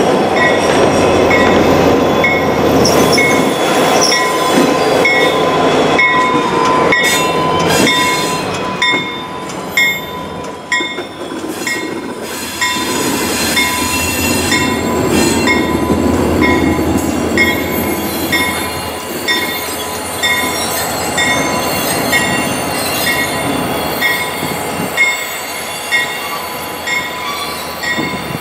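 Train hauled by an EMD GP40-2 diesel locomotive rolling by, the wheels squealing on the rails, with a bell dinging steadily about once a second. The rumble of the train drops away near the end.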